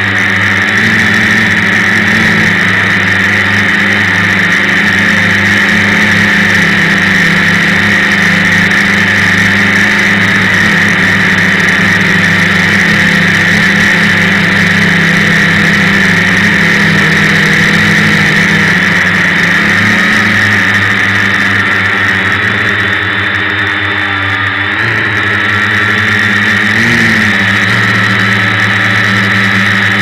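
Multirotor drone's electric motors and propellers running in flight, heard close up from the camera mounted on the drone: a steady, loud hum with a high buzz, its pitch shifting briefly a couple of times near the end.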